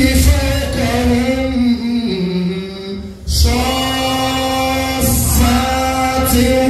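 A man chanting in long, drawn-out melodic phrases into a microphone, with a falling phrase and a short pause about three seconds in before the next held note.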